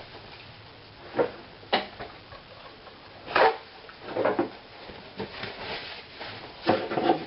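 About five short knocks and rustles from raw chicken pieces being turned and handled in a plastic container.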